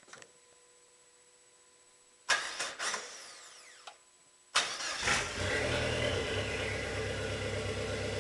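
Dodge SRT-4's turbocharged four-cylinder being started. A short burst of cranking about two seconds in dies away without catching. About two seconds later the engine cranks again, fires and settles into a steady idle. The turbo is blown, which the owner is still trying to fix.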